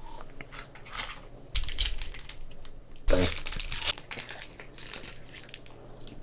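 A trading card pack's wrapper crinkling and tearing as it is opened, with two louder bursts about a second and a half and three seconds in.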